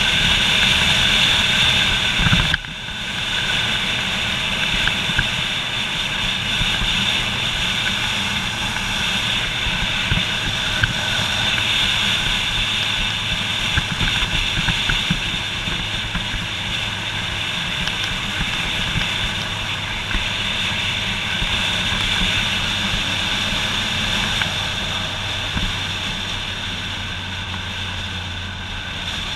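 Motorcycle riding along at speed, heard from a camera mounted on the bike: a steady engine hum under wind and road noise. The sound drops sharply about two and a half seconds in, then carries on steadily.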